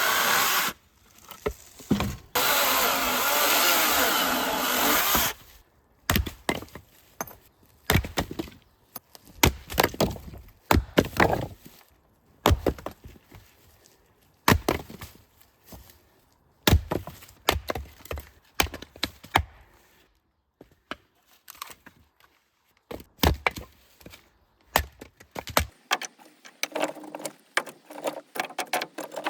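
Firewood being cut and handled: a loud steady sawing noise for about three seconds near the start, then many sharp, irregular wooden knocks and clatters.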